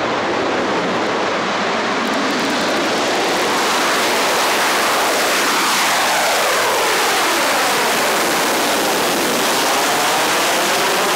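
Boeing X-32B jet running in hovering, jet-borne flight: a loud, steady rushing jet blast. From about four seconds in, faint whistling tones sweep up and down through it as the aircraft moves above the ground.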